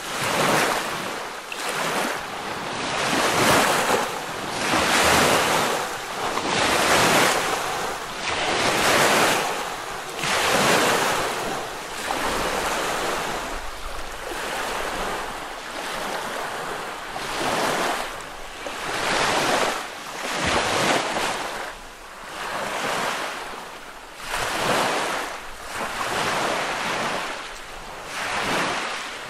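Lake waves breaking and washing onto a beach, a new wash every second or two.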